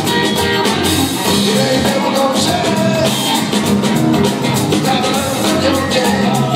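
Loud music with a steady beat and singing.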